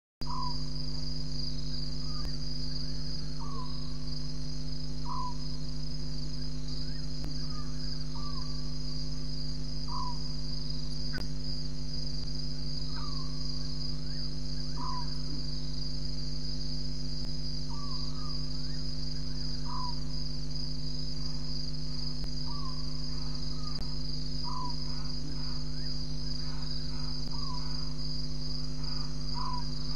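Night ambience of a steady high insect trill, like crickets, with a short call about every two seconds from an unseen night animal. A steady low electrical hum runs underneath.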